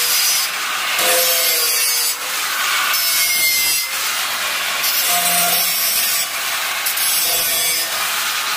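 Handheld angle grinder with its disc grinding along the edge of a sheet-metal box, a harsh continuous grinding noise that swells and eases about once a second as the disc is worked along the edge.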